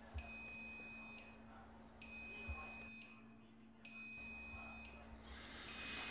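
Electronic beeper sounding a steady high beep about a second long, repeating roughly every two seconds, four times. A newspaper rustles near the end.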